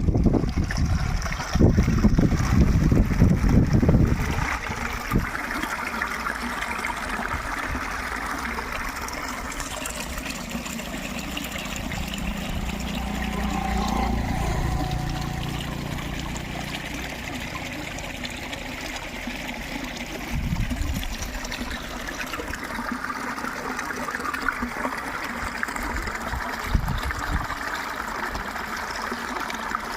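Water trickling and flowing steadily, with heavy low rumbling in the first few seconds and a low hum that swells and fades around the middle.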